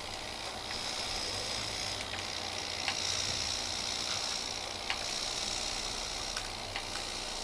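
Small electric drive motors and gearing of a two-wheeled toy robot car running as it drives and turns on a wooden floor: a steady high whine that swells about a second in and eases near the end, with a few sharp clicks.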